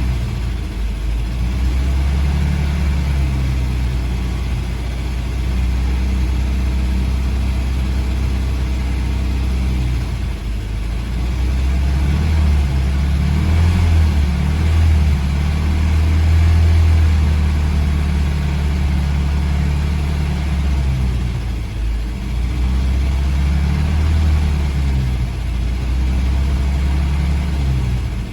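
GAZ M20 Pobeda's four-cylinder flathead engine running steadily to warm up during a cooling-system flush. Its level and pitch rise somewhat in the middle, then settle back.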